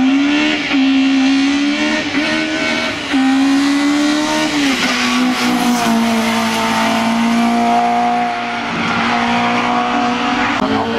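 Hill-climb race car engine at full throttle. Its note climbs and falls back several times in the first five seconds, as at gear changes, then holds a steady high pitch before dropping again near the end.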